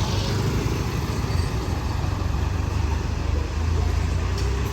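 Street traffic: a steady low rumble of passing vehicles with a haze of road noise.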